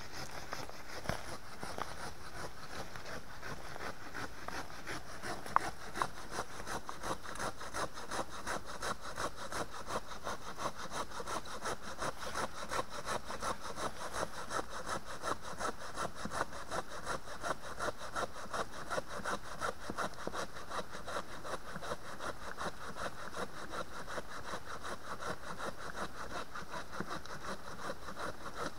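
Hand saw cutting through a fallen dead log, in a steady, even rhythm of rasping strokes. A couple of sharp knocks come a few seconds in.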